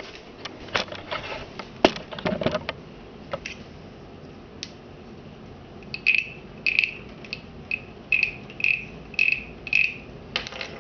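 Wooden croaking-frog guiro, played by rubbing a stick along the ridges of its back: eight short rasping croaks, about two a second, starting a little past halfway. A few light clicks and knocks of handling come first.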